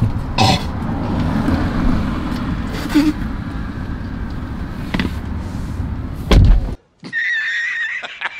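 Someone climbing into a car's driver's seat: rustling and knocks over a low rumble, then a car door shutting with a loud thud about six and a half seconds in. The sound cuts off suddenly and an edited-in meme clip with a wavering high tone follows.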